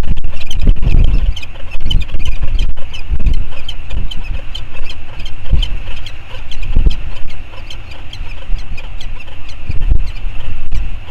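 Wind buffeting the microphone in gusts, strongest at the start and swelling again several times, over a steady run of quick, high-pitched chirps or ticks.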